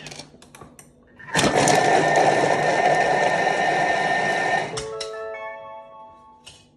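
Thermomix blades spinning at speed to chop onions and garlic: a loud, steady whirring run of about three and a half seconds that starts about a second in and stops abruptly, followed by a few fading steady tones.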